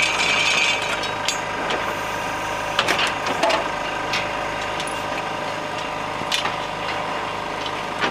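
The hydraulic power unit of a cattle hoof-trimming crate runs steadily. Over it come a rattle of metal in the first second, then sharp metal clanks from the crate's gates and chains as the cow is released: two or three around the third second, one about six seconds in, and one near the end.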